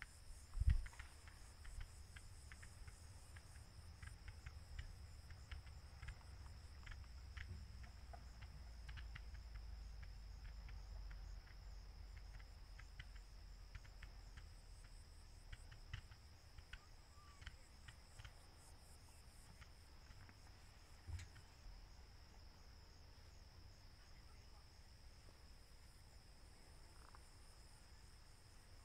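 Crickets chirring steadily, with distant fireworks: a low thump about a second in, a smaller one about two-thirds of the way through, and scattered faint crackles in the first half.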